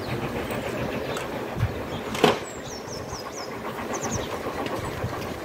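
Steady mechanical engine rumble, with one brief loud clank about two seconds in. Small birds chirp several times high above it.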